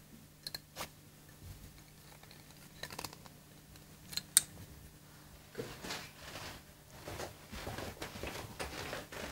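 Small metal clicks and taps of bench work as key posts are fitted into a grenadilla clarinet body, the sharpest click about four seconds in. From about halfway there is a denser run of scraping and rubbing, over a steady low hum.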